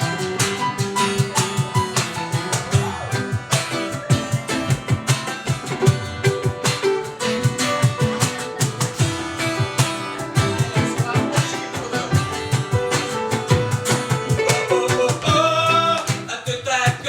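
Acoustic guitar playing an instrumental passage of the song, notes plucked and strummed in a steady rhythm.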